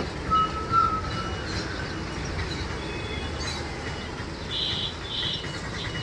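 Steady low rumble of road traffic, with faint high bird chirps and whistles now and then.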